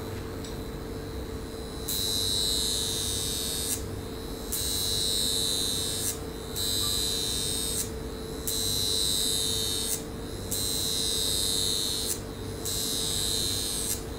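High-frequency facial wand buzzing as its glass electrode is worked over the skin. It starts about two seconds in and cuts in and out in bursts of about a second and a half, with short breaks between them.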